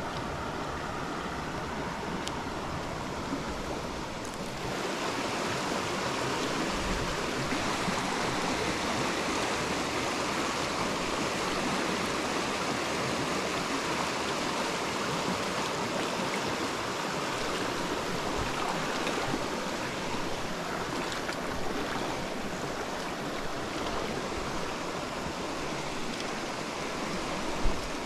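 Flowing stream water, a steady rushing hiss that gets louder about four and a half seconds in. A short knock sounds near the end.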